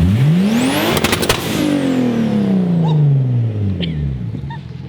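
Toyota 2JZ single-turbo straight-six in a swapped Nissan 240SX revved once: the pitch climbs sharply for about a second, a quick cluster of pops comes at the top, then the revs fall slowly back over about three seconds.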